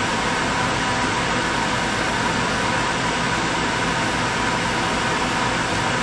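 RV rooftop air conditioner running on low cool, compressor and blower fan both on: a steady rush of air with a low hum.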